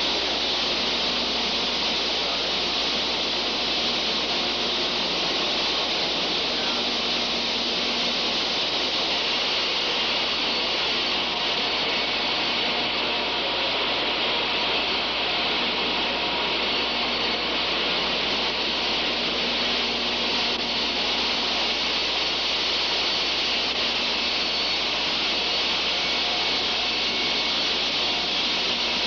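Steady rushing hiss of water spraying from a hose, unchanging throughout, over a faint low hum.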